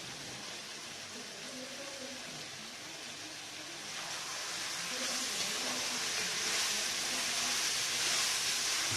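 Steady sizzling hiss of biryani masala cooking in a pot over a high-pressure gas burner, growing louder about four seconds in.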